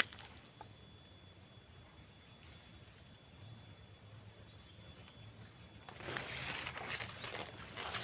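A steady, high-pitched drone of insects. About six seconds in, footsteps start crunching and rustling through dry leaves and undergrowth.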